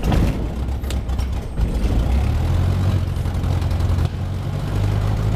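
Cessna 150's Continental O-200 four-cylinder engine running just after a cold start at freezing temperatures, which was hard to get going; it is uneven for about the first two seconds, then settles into a steady idle. Heard from inside the cabin.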